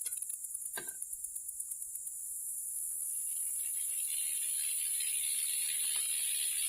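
Scrap metal and debris rattling in a magnet screen as it is worked, with a knock just under a second in; the rattling thickens and gets louder from about two and a half seconds in. A steady high hiss runs underneath.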